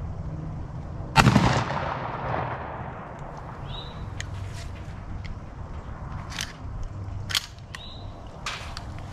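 A single shotgun blast from a Remington 870 pump-action, echoing and fading over about a second and a half. A scattering of much fainter light clicks follows.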